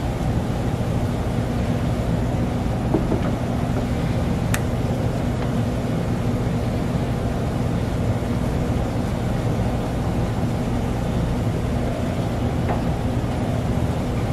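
Steady low machine hum, with a few faint clicks.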